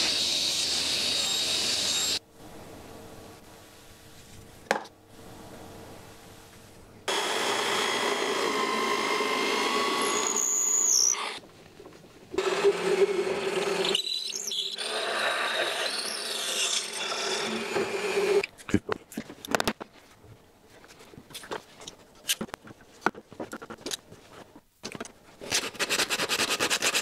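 Woodworking power tools running on wood in several separate stretches, each starting and stopping abruptly, followed by quick, irregular scraping and rubbing strokes on wood.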